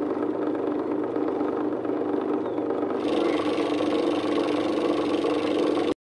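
Homemade flour mill driven by an old motor, running steadily while it grinds grain into flour. About three seconds in the sound turns brighter and a little louder, and it cuts off abruptly near the end.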